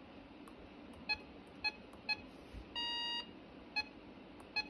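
RadioShack weather alert radio beeping at each button press while its alert menu is stepped through: five short key beeps and one longer beep about three seconds in.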